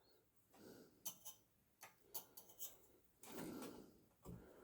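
Near silence broken by a few faint, irregular clicks and a soft rustle, from handling a Chinese shoe patcher sewing machine as its bobbin thread is drawn up.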